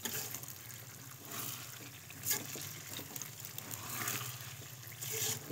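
Soaked semolina sizzling in hot ghee in a metal pot while a metal spoon stirs it, with a few short scrapes of the spoon against the pot.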